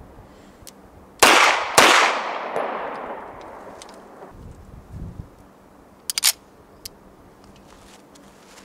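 Two pistol shots from a CZ SP-01, about half a second apart, each followed by a long echo that dies away over a couple of seconds. A few short, sharp clicks follow a few seconds later.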